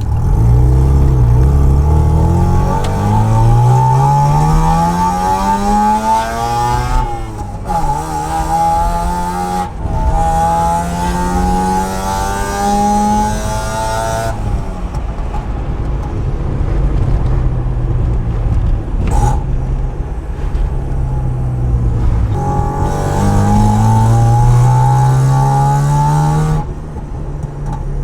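Mazda FC RX-7's 13B two-rotor rotary engine pulling through the gears. Its pitch climbs for several seconds, drops at each shift and climbs again, with a steadier stretch in the middle and another pull near the end.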